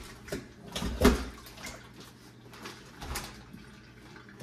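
A raw turkey being handled in a stainless steel kitchen sink: a series of irregular wet rustles and knocks, the loudest with a dull thud about a second in.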